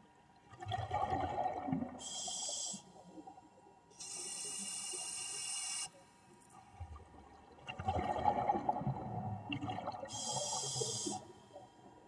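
Scuba diver breathing through a regulator underwater: two long bursts of exhaled bubbles gurgling, about half a second in and again about eight seconds in, with steady hisses of inhaled air from the regulator between and after them.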